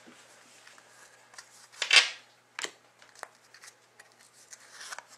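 Trading cards being handled and slid one behind another in the hand: soft rustles and light clicks, with one louder, sharper rustle about two seconds in.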